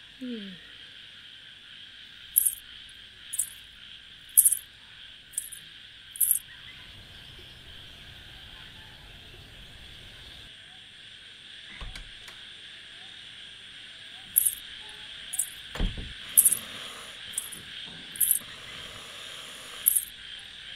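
Night insect chorus: a steady high chirring, with sharper high-pitched chirps about once a second in two runs, one early and one late. Two dull thumps sound midway.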